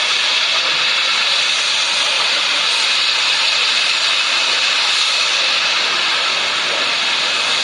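Loud, steady hiss of gas rushing out of a damaged LPG tanker truck under pressure.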